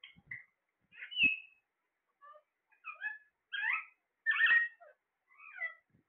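Caged green parakeets calling: a string of short calls and chirps with gaps between them, loudest about a second in and again past the four-second mark.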